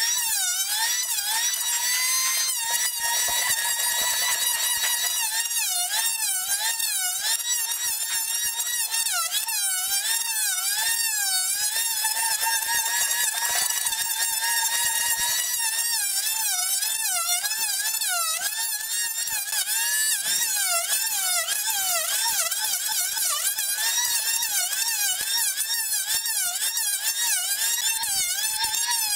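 Electric hand planer running and shaving across a wooden tabletop, its motor whine wavering up and down in pitch as the cutter takes each pass, over a steady hiss of cutting.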